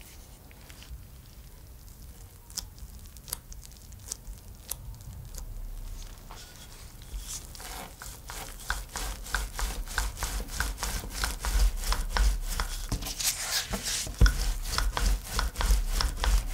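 Dough being handled on a floured wooden tabletop and then rolled out with a wooden rolling pin: a few soft taps at first, then from about halfway a busier run of rubbing and rapid clicks over a low rumble as the pin rolls back and forth, growing louder.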